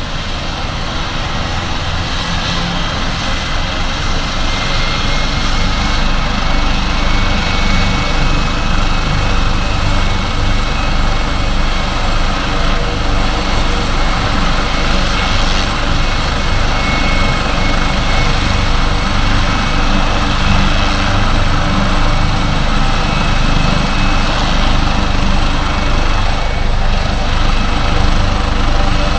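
Medical helicopter's turbine engines and rotor running at close range, with a steady high turbine whine over the rotor noise. It grows louder over the first few seconds, then holds steady.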